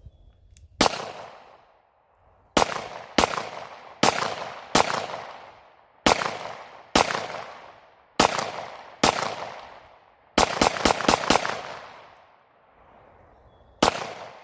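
Gunshots from a rifle-to-handgun drill with an M4-style rifle and a Beretta 92FS pistol, each shot ringing out and dying away. About fifteen shots in all: single shots about a second apart, a quick string of about five a little past halfway, then one more shot near the end.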